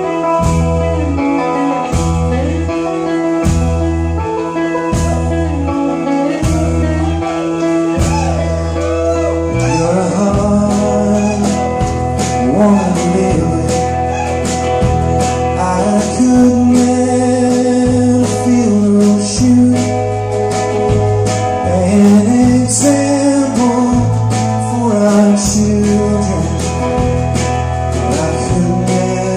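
Live band playing a country-folk song: a man sings lead over acoustic guitar, electric guitar, bass and drums keeping a steady beat.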